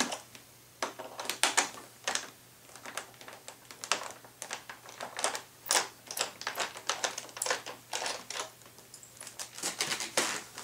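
Small screwdriver working a wing-mounting screw that will not thread in on a foam RC plane: irregular light metallic clicks and ticks of the tool and screw, with gaps between them. The screw is not lined up with the bolt it goes into.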